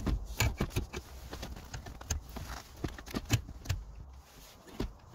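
Dashboard plastics of a car stereo unit being worked loose and pulled up out of the centre console: a run of irregular sharp clicks, taps and knocks as the unit shifts against tight trim.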